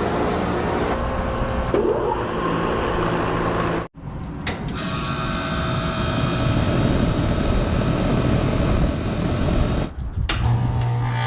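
HVAC units starting up and running: whooshing air with a steady mechanical hum. The sound breaks off suddenly twice and changes each time, and after the second break a strong low hum comes on.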